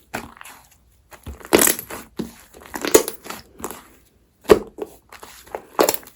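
Slime being squished and pressed by hand in a run of irregular sticky, crackling presses, four of them louder than the rest.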